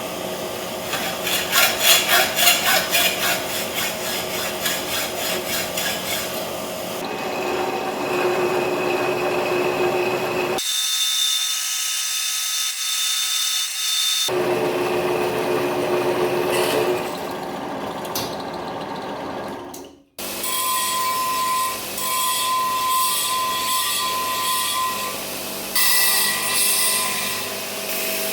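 Steel being cut and worked with workshop tools, starting with sawing that shows rapid strokes. The sound changes abruptly several times as one short tool clip gives way to another, with a brief drop-out about two-thirds of the way through.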